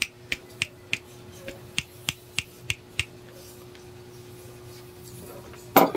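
Connecting rod on a Honda Wave 100 crankshaft rocked back and forth by hand, its big end clicking sharply about three times a second for the first three seconds. The clicks come from play in the worn rod, the tok-tok knock that the mechanic is replacing the crankshaft for.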